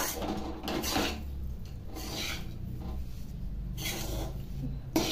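Flat steel spatula scraping and stirring a thick, crumbly jaggery-and-wheat-flour mixture around a metal kadhai, in repeated rasping strokes about a second apart. The mixture is cooked to the point where the ghee has begun to separate out.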